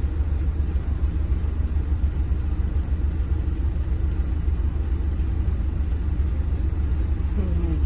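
Bus engine running with a steady low rumble, heard from inside the passenger cabin.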